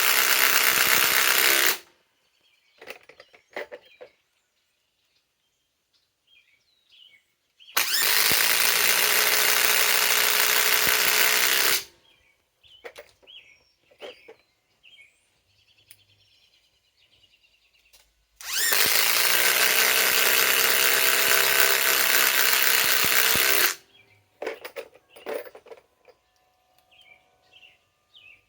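Ridgid half-inch compact cordless impact wrench driving 4-inch TimberLOK screws into wood. It hammers in three runs of about four to five seconds each, with a steady motor whine under the rapid impacts and short pauses between the screws.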